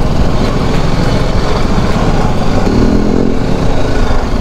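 Motorcycle running along a rough mountain road, heard from the rider's seat as a loud, steady rumble, with a brief rise in engine note about three seconds in.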